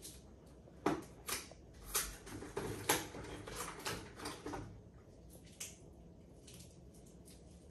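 Hands handling medical supplies while the injection is prepared: a string of sharp clicks and short rustles, most of them in the first few seconds, then quieter.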